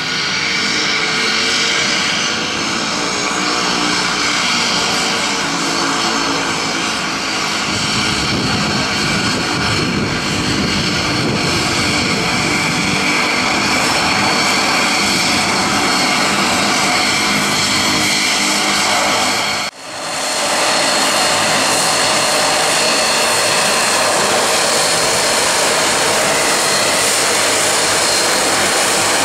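Twin Pratt & Whitney PT6A turboprop engines of a de Havilland Canada DHC-6 Twin Otter floatplane running at taxi power as it taxis on the water: a loud, steady turbine whine with propeller noise. The sound drops out briefly about two-thirds of the way in, then resumes just as steady.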